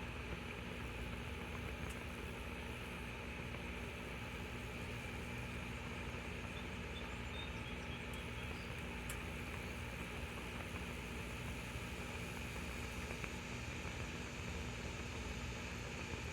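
Alcohol backpacking stove burning under a titanium pot of water that is heating toward the boil: a steady hiss with a low rumble.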